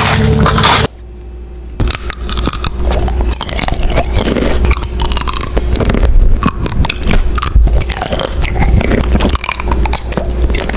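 Close-miked eating: a person biting and chewing food, with many small crisp crunching clicks and wet mouth sounds. A different sound with steady held tones ends abruptly about a second in, before the eating starts.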